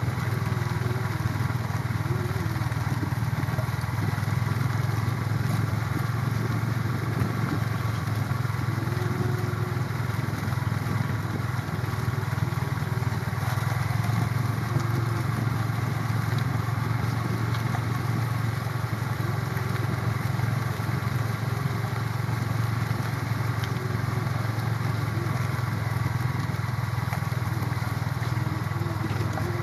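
Small motorcycle engine running steadily while the bike is ridden along at an even speed.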